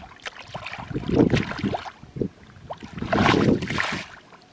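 Muddy water splashing and sloshing as hands work through shallow mud, in two bursts, about a second in and again about three seconds in.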